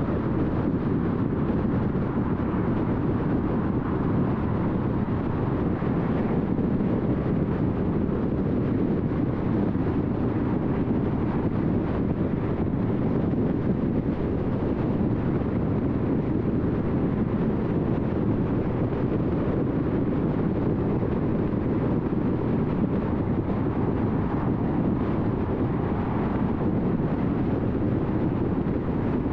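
Steady road and tyre noise of a car driving along without a break.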